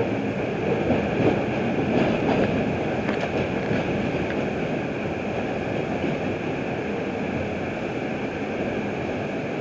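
R142 subway train running at speed: a steady rumble and hiss of steel wheels on rail, with a few faint clicks in the first few seconds.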